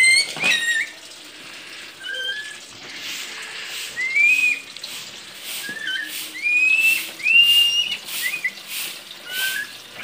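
Caged friarbirds (koak) giving a loose series of short, clear whistled notes, most of them rising, spaced through the whole stretch. A few sharp clicks come in the first second.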